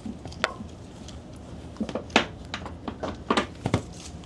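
A handful of sharp metal clicks and knocks as a retractable ratchet strap and its hook are handled and latched, the loudest a little past two seconds in.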